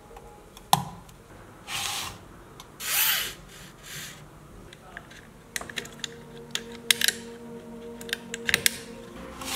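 Small plastic parts of a diecast model car being pried and handled: a sharp snap about a second in, two brief scraping sounds around two and three seconds, then a run of small clicks and taps.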